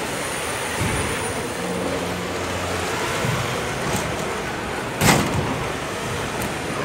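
Steady noise of a robotics competition field: robots driving amid the hall's hubbub, with one sharp, loud thump about five seconds in.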